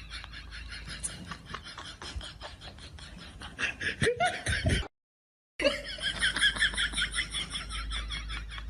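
Person laughing in quick repeated pulses, with a short dead gap about five seconds in where one clip cuts to the next.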